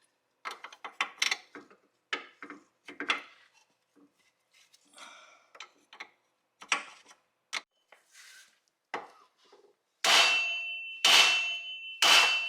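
Open-end wrench clinking and clanking against the lower ball joint nut and suspension knuckle as the nut is worked loose. Near the end come three loud ringing metal strikes about a second apart.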